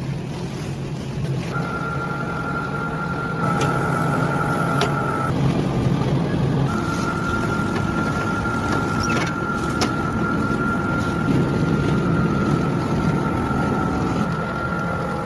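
Machinery running steadily with a thin, high whine that starts about a second and a half in, breaks off briefly, then resumes, over a low rumble with a few sharp clicks.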